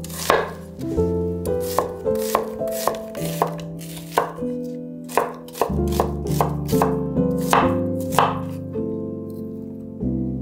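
Kitchen knife chopping food on a cutting board: single sharp strikes at an uneven pace, about one or two a second. Soft background music with long held notes plays underneath.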